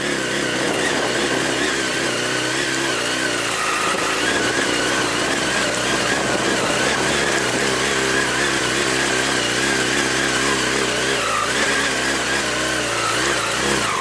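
Honda CBR929RR sportbike's inline-four engine running steadily while the bike rolls slowly along, its pitch wavering a little.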